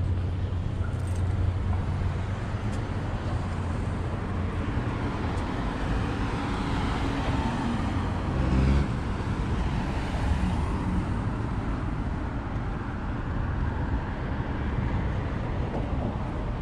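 City street traffic: cars driving by with a steady low rumble, and one vehicle passing close, its noise swelling to a peak a little past halfway and fading again.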